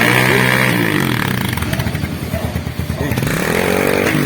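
Motorcycle engine running through a freshly refibered bullet muffler, revved twice: the pitch rises and falls near the start and again near the end, with idling between.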